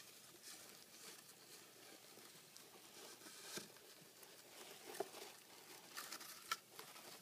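Faint rustling and scratching of wood-shaving bedding as a hedgehog burrows and pushes a cardboard toilet paper tube around, with a few sharper clicks and taps about three and a half, five and six and a half seconds in.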